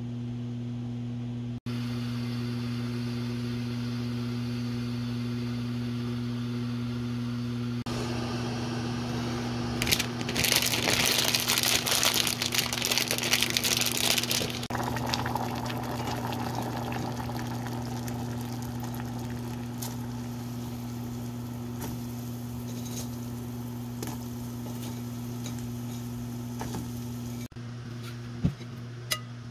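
Water poured into a ceramic bowl of dry instant noodles, a rushing pour of about four seconds, over a steady low hum.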